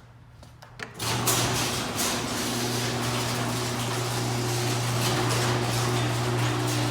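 Raynor Pilot chain-drive garage door opener starting with a click about a second in, then running steadily as it closes the door: a motor hum under the rattle of the chain and the moving door.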